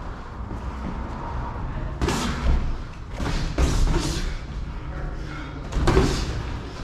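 Boxing gloves landing in sparring: several quick volleys of padded punch thuds from about two seconds in, the loudest about six seconds in.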